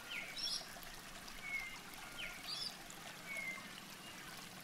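Birds calling, short chirps and brief whistles recurring roughly every two seconds, over a steady rush of running water.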